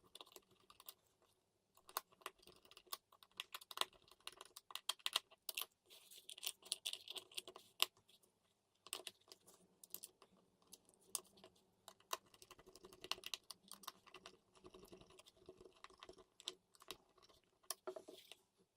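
Irregular small clicks, taps and rattles of hands working on a small plastic Wi-Fi smart switch and its wiring, many light knocks in quick succession with brief rustling between them.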